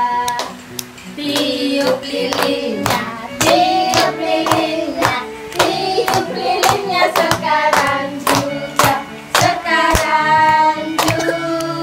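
A group singing a birthday song, with hands clapping along in time, about two claps a second.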